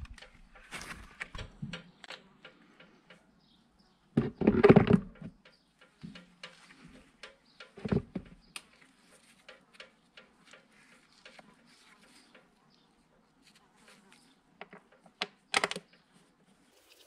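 Clicks and knocks of a motorcycle's plastic airbox lid being handled and fitted over the air filter, with a heavier thump about four seconds in and sharper knocks near eight and fifteen seconds.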